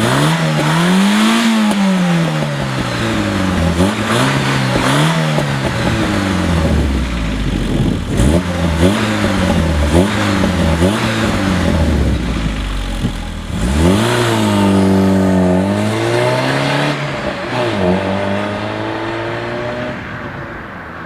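1991 Volkswagen Golf Mk2 1.6 inline-four engine on its stock exhaust, revved again and again: a long rev at the start, a run of short throttle blips, another long rev about two-thirds of the way in, then a few more blips before it drops back to idle near the end.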